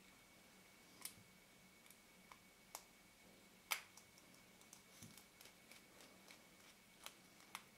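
Near silence broken by scattered faint clicks and taps of small metal lens parts and tools being handled on the bench during a lens teardown, the sharpest about halfway through.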